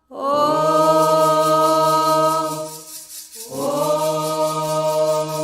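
Voices singing a Candomblé chant to Xangô in long held notes: two sustained phrases with a short break about three seconds in.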